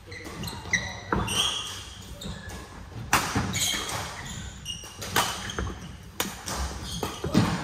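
Badminton rackets striking a shuttlecock in a doubles rally, a sharp hit every second or two, with short squeaks of shoes on the court mat. The hits echo in a large hall.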